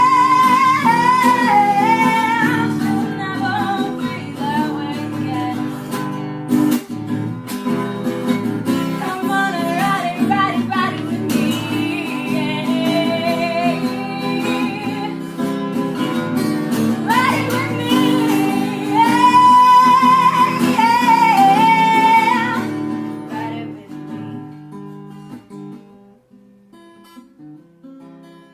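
Acoustic guitar song with a woman singing. The singing stops about 23 seconds in, and the guitar fades out near the end.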